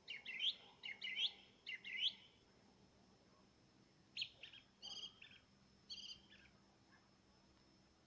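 Nightingale singing: three quick rising whistled phrases in the first two seconds, then after a short pause a run of repeated clear notes.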